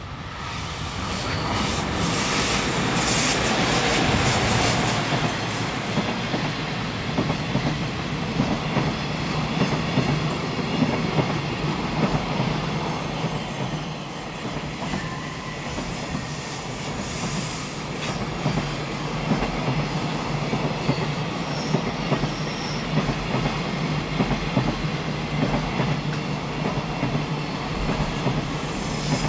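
JR Freight EF200 electric locomotive passing, growing louder over the first few seconds, then a long string of mostly empty Koki container flatcars rolling by with a steady rumble and repeated wheel clacks over the rail joints. Now and then a faint high squeal comes from the wheels on the curve.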